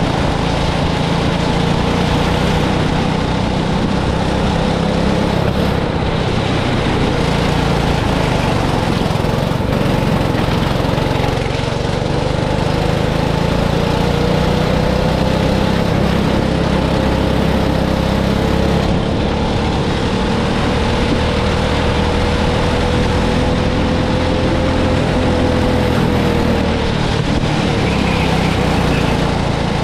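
Go-kart's small engine running continuously, its pitch slowly rising and falling with speed.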